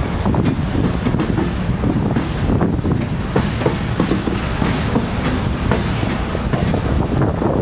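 Freight train cars (boxcars, covered hoppers and tank cars) rolling past: a steady rumble of steel wheels on rail, with constant clicking over the rail joints and a couple of faint, brief wheel squeals.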